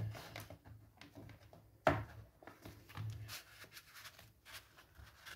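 Paper and cardstock being handled: light rustling and sliding of card pieces, with a sharp tap about two seconds in and a softer one about a second later.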